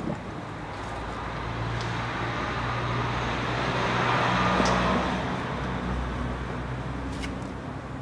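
A vehicle passing by, its sound swelling to a peak about halfway through and then fading, over a steady low hum, with a few light clicks.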